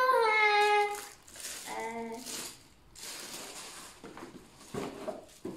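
A child's voice, then rustling and crinkling of gift packaging and a cardboard box being handled, with two sharp knocks near the end.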